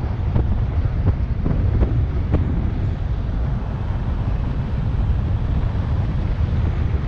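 Wind blasting across the microphone of a camera on a bicycle descending fast on a highway: a loud, steady low rumble, with a few light ticks in the first couple of seconds.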